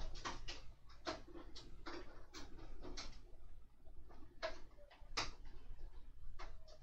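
Irregular small clicks and taps of a hand screwdriver and fingers working on a model bus while small screws are driven into its ceiling assembly, with one sharper click about five seconds in.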